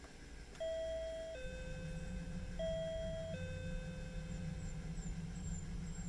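Electronic two-tone doorbell chime (Japanese 'pinpon' intercom) ringing twice: each time a higher note steps down to a lower, longer one.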